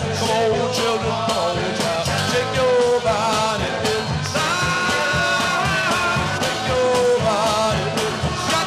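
Rock band playing, with a man singing the lead vocal over guitars and a steady drum beat.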